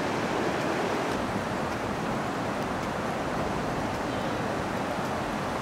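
Shallow mountain creek rushing over stones: a steady, even wash of water.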